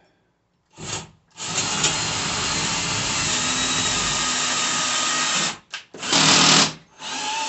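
Cordless drill with a socket bit driving lag bolts through a TV wall-mount bracket, its clutch set to low torque. It runs in bursts: a short one, then a steady run of about four seconds, then a brief louder spurt and another run near the end.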